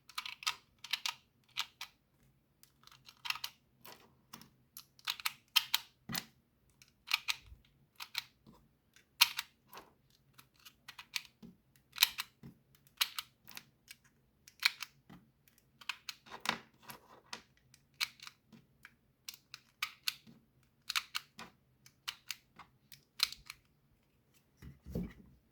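Small metallic clicks as .22 LR rimfire cartridges are pushed one at a time into a 20-round Tikka T1x magazine, each round snapping down under the feed lips. The clicks come about once a second, sometimes in quick pairs.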